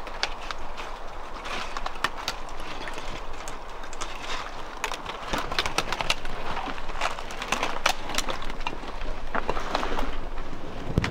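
Footsteps crunching through dry leaf litter, twigs and rubble while dead branches brush and snap, giving a steady run of sharp cracks and rustles.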